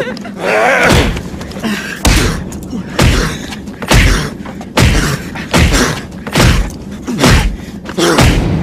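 A series of heavy thuds, about nine of them, roughly one a second, with a wailing human cry about half a second in.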